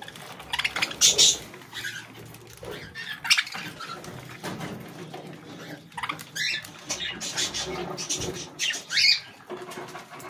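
Budgerigars chattering while they feed, with short chirps and harsh squawks at irregular intervals, the loudest about 1, 3, 6 and 9 seconds in.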